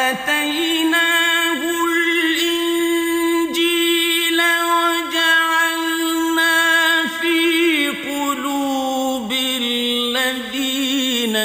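A man chanting Quranic Arabic in melodic tajweed style: long phrases mostly held on one pitch with ornamented wavering turns, stepping down to a lower pitch near the end.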